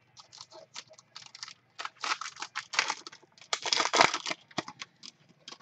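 Foil trading-card pack wrapper crinkling and tearing as it is opened by hand, in quick irregular crackles, loudest in a stretch of rustling a little after three and a half seconds in.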